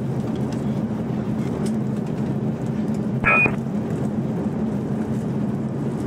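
Steady in-flight cabin drone of an Airbus A380: an even rushing noise over a low hum. A short, high beep sounds once, about three seconds in.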